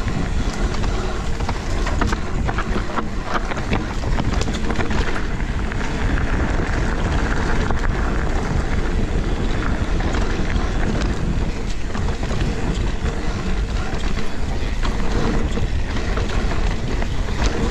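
Mountain bike descending a rough dirt trail: steady wind on the camera microphone over the rumble of the tyres, with frequent sharp clatters and knocks from the bike over bumps.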